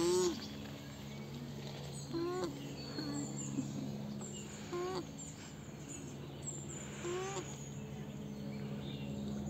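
Alpacas humming: about five short, soft hums, each rising and then falling in pitch, the loudest right at the start and the rest spaced a couple of seconds apart. A steady low drone runs underneath, with faint bird chirps.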